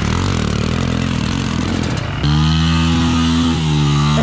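Yamaha YZ125 two-stroke single-cylinder engine running close up. The revs waver low at first, then about two seconds in the engine note jumps up, gets louder and holds a steady pitch.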